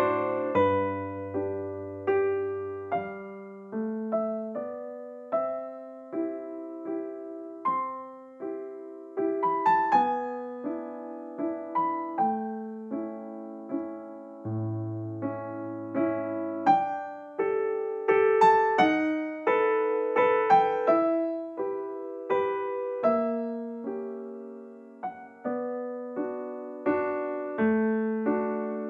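Background music: a gentle piano tune, single notes struck and fading one after another over occasional held low bass notes.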